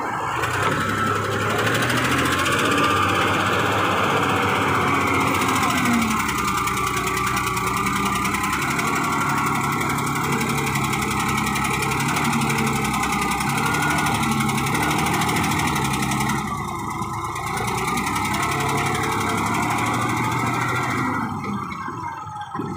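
Caterpillar 966F wheel loader's diesel engine running under load as it digs into sand and lifts a full bucket, with a whine that rises and falls over the engine drone.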